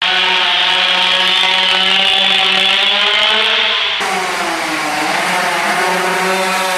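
Go-kart engine running at high revs, its pitch dipping and climbing back about five seconds in as the kart slows and accelerates. The sound changes abruptly about four seconds in at an edit.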